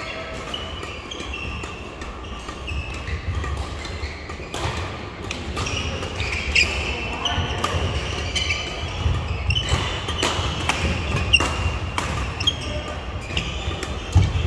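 Badminton doubles play in a sports hall: many sharp racket strikes on the shuttlecock, with short high squeaks of court shoes on the floor.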